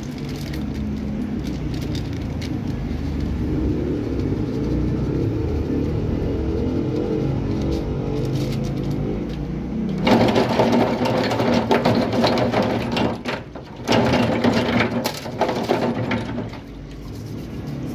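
A toothbrush scrubbing rust off .45 M1911 pistol parts in soapy water in a plastic tub. The brisk scratchy strokes come in bursts and start about halfway through. Before that there is a steady low hum.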